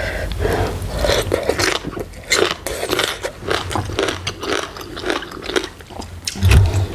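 Chewing a mouthful of green papaya salad (som tam) with instant noodles: a quick, irregular run of crunchy clicks. There is a low thump near the end.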